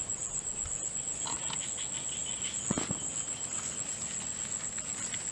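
Crickets trilling steadily in one continuous high-pitched tone, with softer insect chirps beneath it. A single sharp knock comes near the middle.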